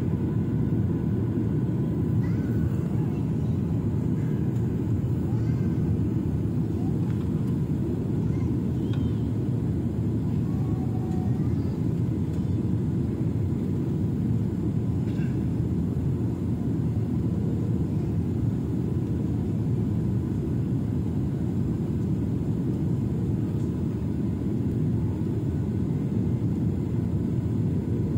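Steady low cabin noise of a jet airliner in flight, heard from a window seat, with faint voices now and then.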